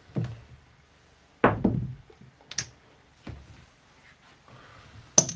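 Handling noise at a craps table: a few separate knocks and thumps as the dealer's stick and chips are moved on the table, the loudest about a second and a half in, with a sharp click near the end.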